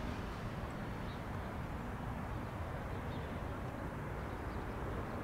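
Airbus A319 airliner's jet engines running as it lands and rolls along the runway, heard as a steady low rumble.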